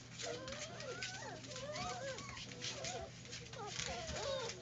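A litter of young puppies whining and yelping together, many short high cries overlapping and bending up and down in pitch.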